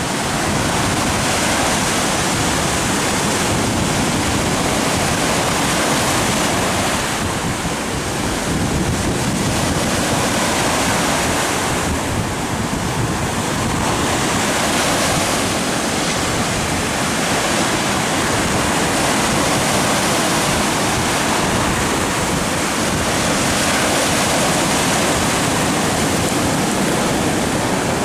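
Shallow surf washing in over sand and rocks at the water's edge: a continuous rush of breaking water that eases and swells again every few seconds, with wind buffeting the microphone.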